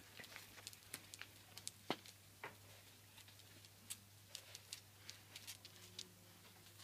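Faint, irregular clicks and taps of puppies' claws pattering on paving stones, over a low steady hum.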